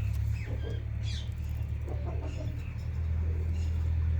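Parrot chirps, a few faint short downward-sweeping calls in the first second or so, over a steady low hum that is the loudest sound throughout.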